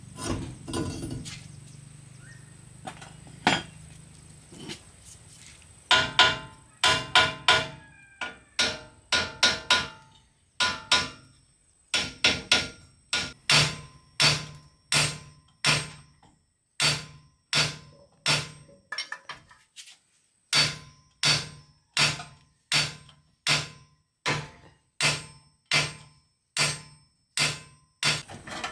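Hammer striking metal, each blow sharp and ringing. The blows come irregularly at first, then settle from about halfway into a steady run of roughly one and a half blows a second.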